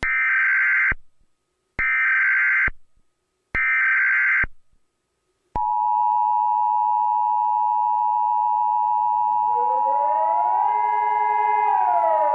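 Emergency Alert System header: three short bursts of screechy data tones, then the steady two-tone EAS attention signal starts about five and a half seconds in. Near the end a siren wail joins it, rising in pitch, holding, then starting to fall.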